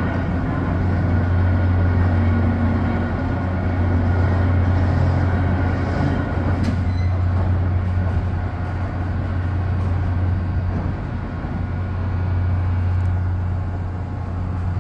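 Railroad bascule drawbridge's drive machinery running with a steady low hum as the truss leaf lowers to close.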